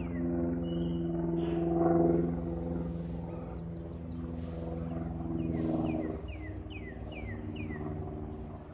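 Light propeller airplane flying overhead, its engine a steady drone that grows louder about two seconds in and fades after about six seconds. A bird repeats short falling chirps near the end.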